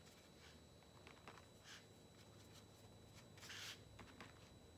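Near silence with a few faint rubbing sounds of a paintbrush working white acrylic paint and medium on a plastic palette, the clearest about three and a half seconds in.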